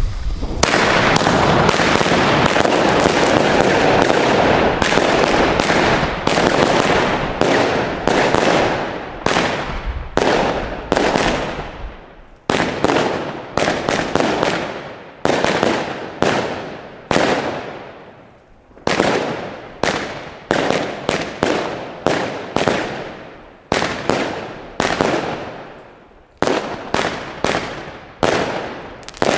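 Klasek Air Show, a 49-shot 20 mm fan-shaped fireworks cake, firing. It starts as a dense, continuous barrage of shots and bursts for about the first twelve seconds. The rest is separate sharp shots in quick succession, about one or two a second, each dying away.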